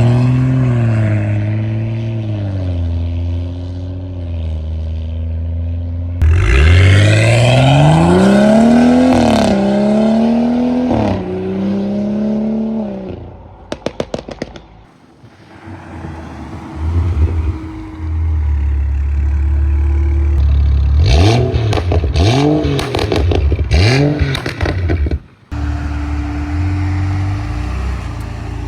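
BMW N55 turbocharged straight-six running through an aftermarket valved exhaust, revving and accelerating in several short clips, its pitch climbing with each pull and dropping between them.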